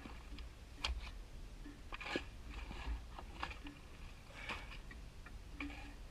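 Shovel blade worked into wet, muddy soil in a trench, giving irregular scrapes and crunches every second or so.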